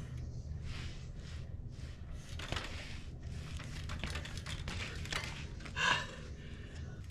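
Trials bicycle being balanced and hopped on concrete: scattered clicks, taps and tyre scuffs from the bike, with a brief squeal about six seconds in, over a steady low rumble.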